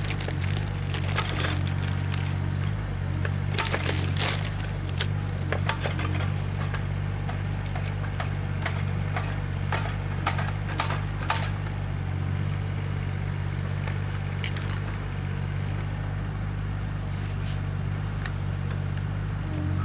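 Scattered sharp cracks and crunches of woody brush and branches being handled and broken, thickest in the first half, over a steady low hum.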